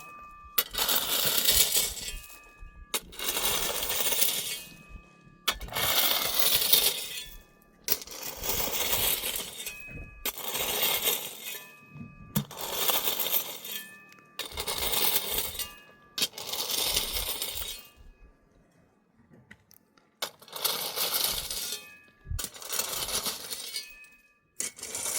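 Small pebbles clattering as they are poured out again and again, about ten strokes, one every two seconds or so, with a short pause about two-thirds of the way through.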